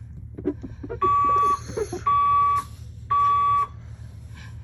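Fire alarm sounding in the temporal-three evacuation pattern. There are three steady electronic beeps, each about half a second long and about a second apart, followed by a longer pause.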